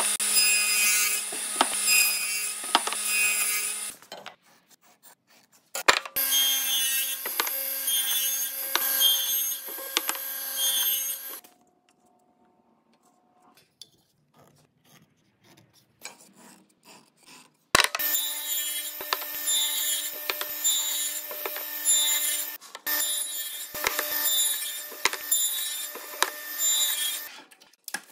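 King radial arm saw running and cutting repeatedly into a wooden leg blank, leaving a row of closely spaced kerfs. The cutting comes in three long stretches, with a short pause about 4 seconds in and a longer quiet gap of several seconds in the middle.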